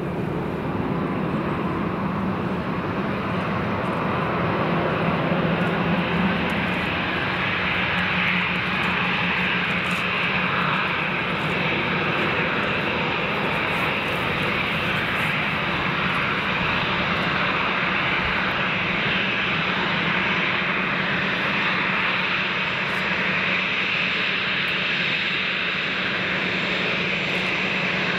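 Airbus A320-214's twin CFM56-5B turbofan engines running at low taxi power, a steady jet engine noise, as the airliner rolls slowly after landing.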